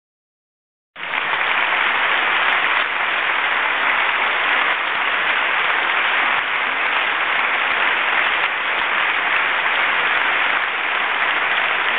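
Audience applauding steadily, starting about a second in.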